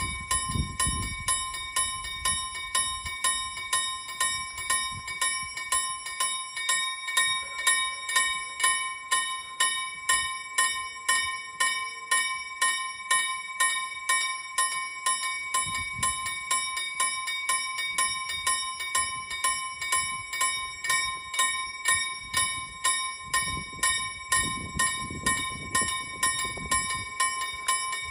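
Railway level-crossing warning bell ringing in a steady rhythm of about two strokes a second, signalling that the crossing is closed for an approaching train.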